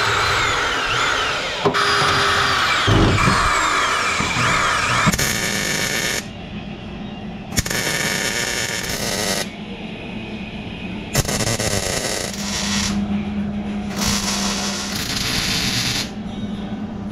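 An electric drill whirs into steel floor-pan sheet metal, its pitch sliding as it speeds up and slows. After about five seconds a wire-feed MIG welder takes over, crackling in several short stop-start bursts as the seams of a car floor are stitch-welded.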